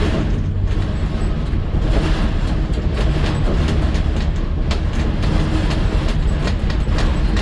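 A vehicle travelling on the road: a steady deep rumble with frequent short rattles and clicks throughout.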